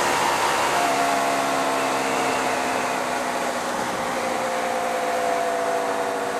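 Hyosung GT125R's small 125 cc V-twin engine running on the move, mixed with wind rush. Its note steps down about a second in, then falls slowly as the bike eases off.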